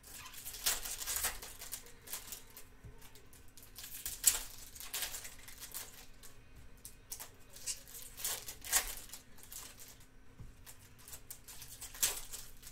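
Baseball-card pack wrappers crinkling and rustling in the hands, with trading cards slid and flipped through, in a run of irregular crinkly rustles with a few sharper crackles.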